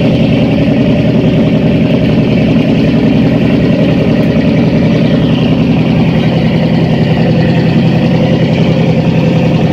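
Fishing boat's engine running steadily and loudly, with a fast, even pulsing beat.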